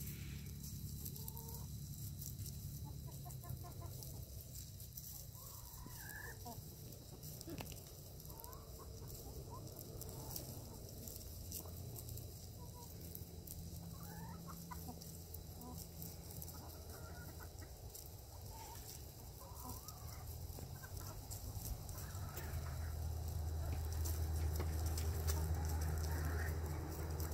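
A flock of chickens clucking, with scattered short calls, as they feed. Underneath runs a steady low rumble that grows louder near the end.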